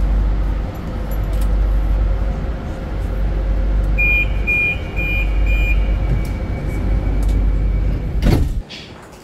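Inside a Lisbon Metro train car: a steady low rumble from the train. About four seconds in come four short high beeps, the door-closing warning, and a sharp thump follows near the end.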